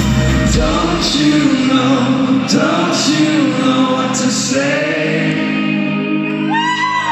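A rock band playing live through a concert hall's PA, with male vocals singing over guitars, keyboards and drums. The heavy bass and kick drop out about half a second in, leaving the voices over lighter accompaniment, and a high rising vocal line comes near the end.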